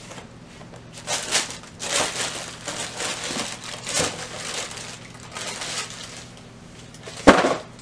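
Tissue paper rustling and crinkling in a series of bursts as it is pulled back in a cardboard shoebox and a high heel is lifted out, with one sharp knock near the end.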